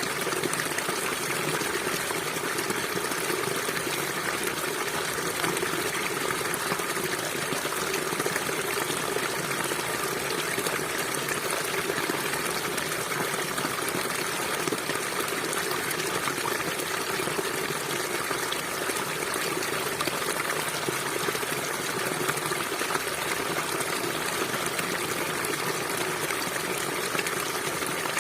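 River water flowing steadily over rocks, an even rushing and splashing that does not change.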